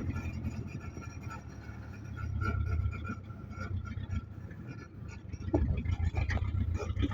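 An engine running with a low, steady rumble. It swells a little around two seconds in and grows louder again from about five and a half seconds.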